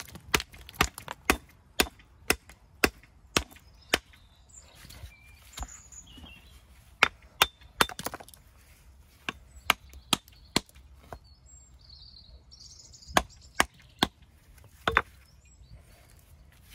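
Hammer striking a stone held on the ground, dressing a ridge off it: a run of sharp knocks about two a second for the first four seconds, then short groups of knocks with pauses between.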